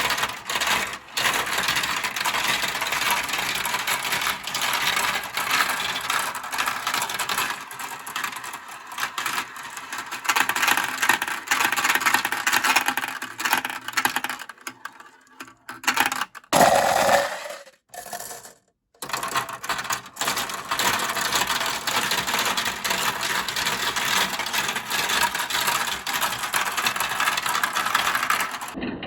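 Marbles rolling and clattering down a plastic Kumi Kumi Slope marble-run track: a dense, steady rattle of clicks. It breaks off for a few seconds past the middle.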